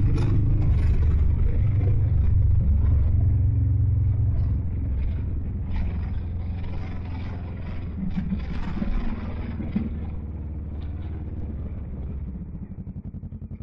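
Kawasaki Vulcan motorcycle engine running on the move, heard from the bike itself with air rushing past. The engine note eases off as the bike slows, and near the end it settles into an even, low pulsing beat.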